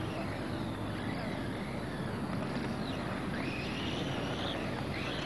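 Radio-controlled race cars' motors whining, the pitch rising and falling as they speed up and slow down around the track, over a steady rushing background noise.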